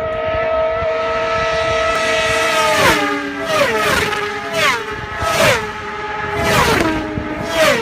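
Racing motorcycles at full speed on a road course, passing close one after another. A high, steady engine note builds for about three seconds, then about six bikes go by in quick succession, each with a loud peak and a sharp drop in pitch as it passes.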